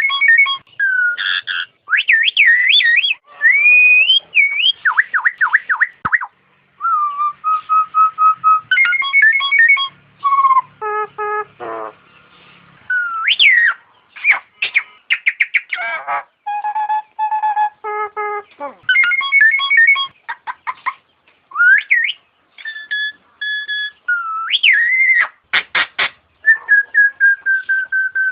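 Jalak nias, a myna kept as a songbird, whistling a varied song of clear notes, rising and falling glides, and fast rattling trills, broken by short pauses.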